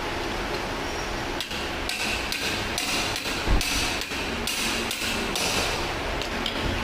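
A run of knocks and short bursts of metallic clatter, as from hammering on metal, with one heavy thud about halfway through.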